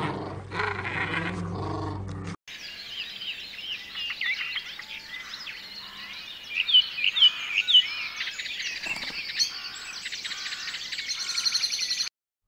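Golden retriever puppies growling as they tug on a leash, cut off about two seconds in by several wild birds chirping and singing, with a few loud sharp notes midway and a fast high trill near the end.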